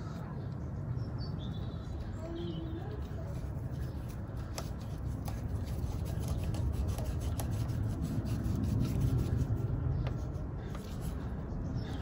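Flat-head screwdriver turning the grub screw back into a motorcycle's rear brake caliper: the blade scrapes and ticks in the screw's slot, with a run of small clicks in the middle. A steady low rumble sits under it throughout.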